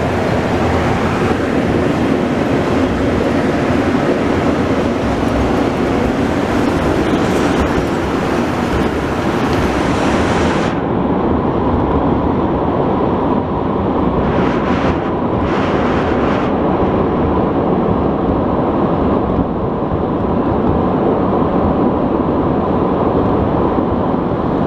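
Montreal metro MR-73 rubber-tyred train running through a tunnel, heard from inside the car: a steady, loud rumble. A higher hiss cuts off sharply about ten seconds in, and comes back twice briefly a few seconds later.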